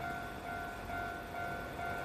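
Japanese railway level crossing alarm ringing, a repeating electronic ding about twice a second, over a low rumble: the warning that a train is approaching and the crossing is closed.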